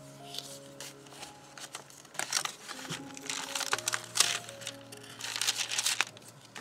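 Thick paper pages of a handmade junk journal rustling and crinkling as they are flipped and handled, in several bursts from about two seconds in. Soft background music with slow, held notes plays throughout.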